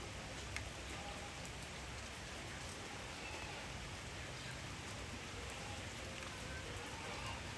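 Steady rain falling, with a few sharp drips now and then.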